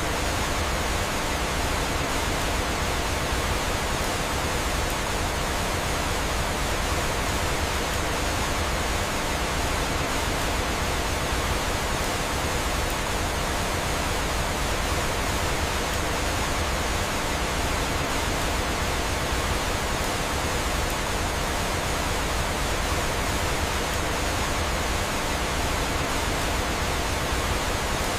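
Steady rushing of falling water: an even, unbroken hiss with no separate events.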